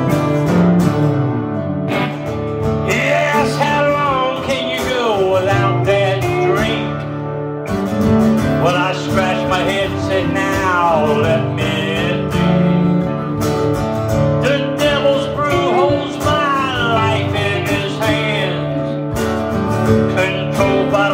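Acoustic and electric guitars playing a country-style song together, steady strummed chords with a wavering, bending melody line coming in and out over them in phrases.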